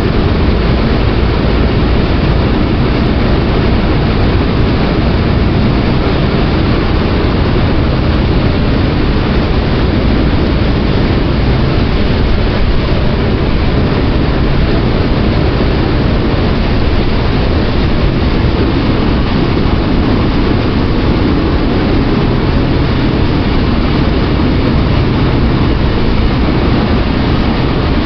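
Ferry under way, its engines running steadily: a low, even engine drone under a loud, constant rushing noise.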